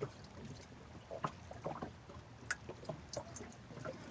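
Small wooden boat rocking at sea: irregular light knocks and water sounds against the hull, with one sharper click about two and a half seconds in.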